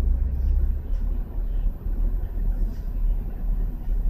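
Low steady rumble of an idling car heard from inside its cabin, the car standing in a queue.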